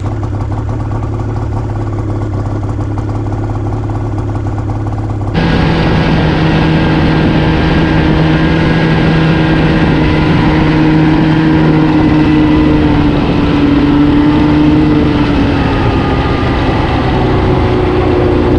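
Snowmobile engine idling steadily, then about five seconds in it changes abruptly to the sled under way, the engine running louder with a steady hum that drifts slightly in pitch.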